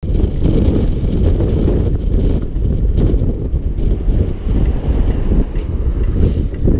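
Steady, loud low rumble of a heavy haulage rig on the move: a Peterbilt 359's Caterpillar 3406 diesel pulling a 23-tonne steam engine on a trailer, with road noise. Scattered light clinks and rattles of the load's fittings run through it.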